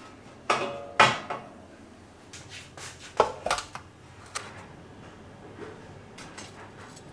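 Dishes and kitchen utensils clinking and knocking while being handled. Two loud knocks about a second in ring briefly, then a few more clatters follow, the last ones lighter.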